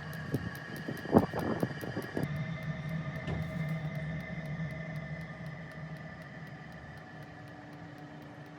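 12 V diesel heater starting up: its fan motor hums steadily while a fine, regular ticking, about three a second, runs underneath, typical of the fuel dosing pump. There are a few louder knocks about a second in.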